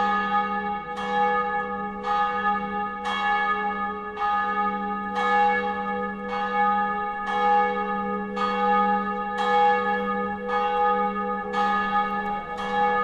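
A single large bell tolling steadily, struck about once a second, each stroke ringing on into the next: a bell sounding the alarm.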